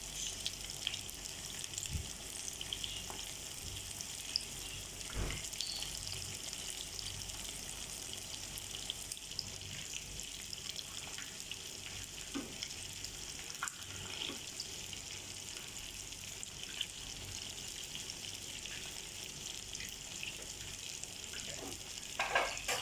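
Chicken nuggets frying in hot oil: a steady sizzle with scattered small crackles and a couple of soft knocks.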